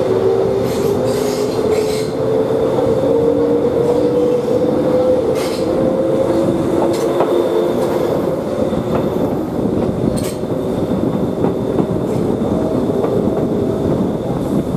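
Kōnan Railway electric train heard from inside a car as it pulls out of the station and gathers speed. A motor whine rises steadily in pitch for the first several seconds, then levels off, over a steady rumble of wheels on rail. A few sharp clicks come as the wheels cross rail joints and points.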